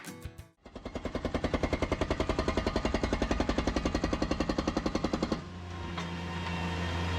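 A power breaker hammers rapidly at old concrete, about ten blows a second, for several seconds. It is the tear-out of the old driveway. Near the end the hammering stops and a steady engine hum carries on.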